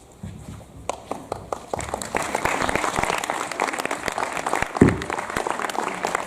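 Audience applauding, starting about a second in and quickly swelling to a steady round of clapping.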